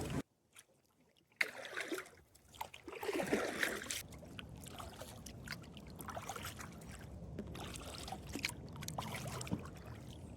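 Water splashing and trickling around a kayak, with scattered knocks, over a steady rush of noise.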